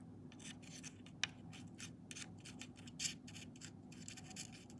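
Faint scratching and light ticks from small metal parts being worked while a multimeter probe-jack sleeve is set in for soldering, with a sharper tick about a second in.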